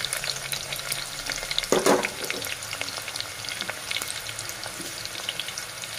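Chopped onion and curry leaves sizzling in hot oil in a pressure cooker pan, a steady crackle of frying for the tempering. There is one brief, louder clatter about two seconds in.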